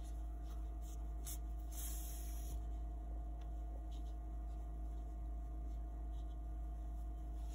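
Steady low electrical hum, with faint brief rustles of cotton crochet fabric being handled around a second or two in.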